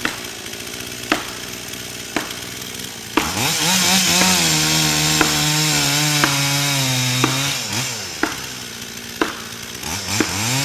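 Chainsaw revving up about three seconds in and cutting into a tree trunk, its pitch wavering under load, then dropping back to idle and revving again near the end. Sharp knocks sound about once a second throughout.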